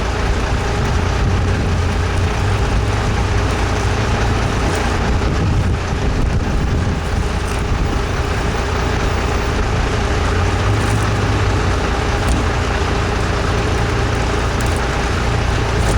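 An engine running steadily, a constant low rumble with a steady hum over it.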